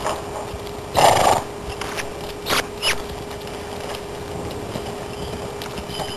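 Palomino Morgan mare's hooves on soft dirt footing as she moves around the pen at speed. About a second in there is a short, loud rushing burst, followed by two sharper short sounds a little later.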